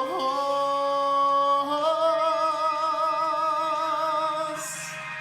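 Worship song being sung: a voice holds the last note of the line with vibrato, moves up to a higher held note about two seconds in, then dies away near the end.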